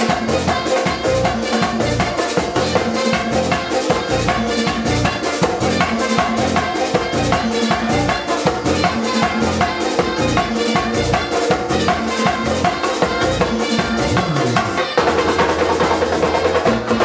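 Live bachata band playing an instrumental passage with güira, hand percussion, keyboard and guitar over a steady, driving beat; the rhythm changes about fifteen seconds in.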